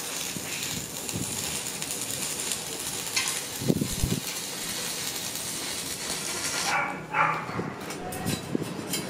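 Stick (arc) welder crackling and hissing steadily as a bead is run on a steel frame, cutting off about seven seconds in when the arc is broken. A couple of sharp knocks about four seconds in, and some metal clatter after the arc stops.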